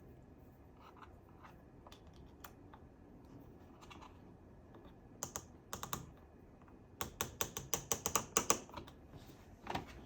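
Small hard clicks from handling a red dot sight's mount on a rifle's top rail: a few scattered ones, then a quick run of clicks about seven seconds in.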